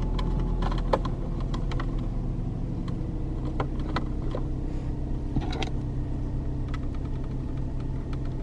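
Steady low hum of a car running, heard inside the cabin, with scattered small clicks and taps from hands working at the dashboard.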